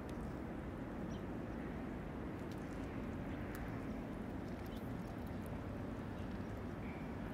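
Steady low outdoor rumble with a few faint, sharp clicks and ticks scattered through it.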